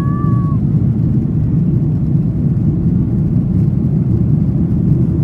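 Steady low roar of a Boeing 737-800's CFM56-7B turbofan engines and rushing air, heard inside the cabin during the climb after takeoff.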